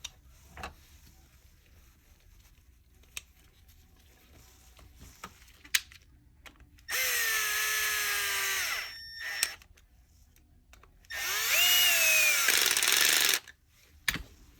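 Power screwdriver driving screws into the Dyson vacuum's plastic cleaner-head housing: two runs of about two seconds each, the motor whine dropping in pitch near the end of each run. Light handling clicks come in between the runs.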